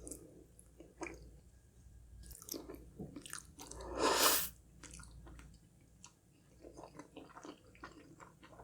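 Close-miked eating sounds: chewing and biting of food, with scattered short wet mouth clicks and one louder, longer noisy sound about four seconds in.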